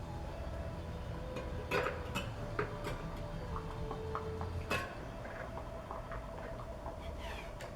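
Irregular light metallic clicks and ticks from hand work on a BMX bicycle's front wheel as it is trued in the stand.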